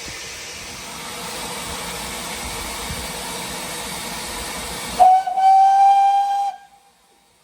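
Steam locomotive with a steady hiss of steam, then one loud steam whistle blast about five seconds in. The blast is a single steady note lasting about a second and a half.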